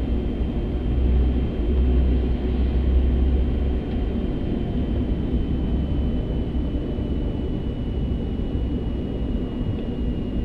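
Steady cockpit noise of an Airbus A380 taxiing onto the runway: a low engine rumble that is heaviest for about the first four seconds and then eases, with a thin steady whine above it.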